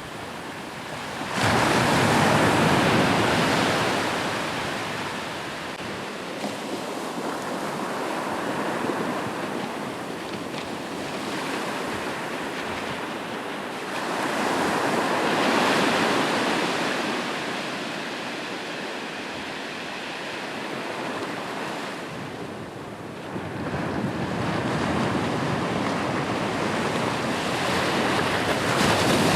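Ocean surf washing on a shore: waves break in three swells, about a second in, around the middle and near three-quarters through, each ebbing away into a steady wash.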